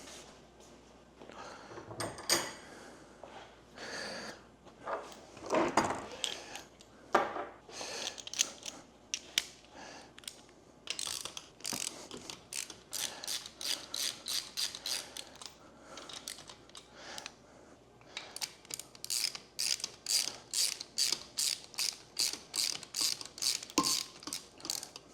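Hand ratchet wrench clicking in quick, even runs of strokes while bolts are loosened on the engine, with a few tool clunks in between.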